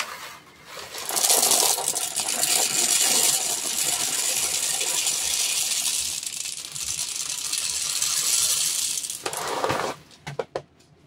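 Plastic airsoft BBs poured from a bag into a fabric BB storage bag: a steady rushing rattle of many small pellets that starts about a second in and stops about a second before the end, with a few scattered clicks after it.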